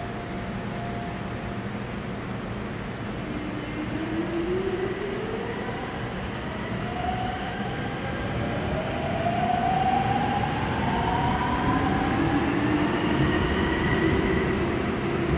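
Seoul Subway Line 5 older second-batch electric train pulling out of a station: the traction motors whine in rising tones that climb one after another as it gathers speed. A rumble of the train rises underneath and grows louder.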